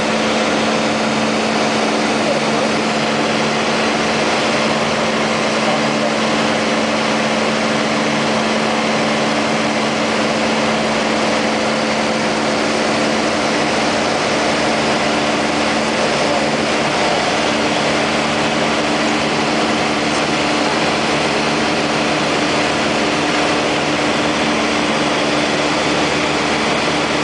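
Piper Cherokee Warrior II's four-cylinder Lycoming engine and propeller droning steadily in flight, heard from inside the cabin, with a constant hiss of airflow over the airframe.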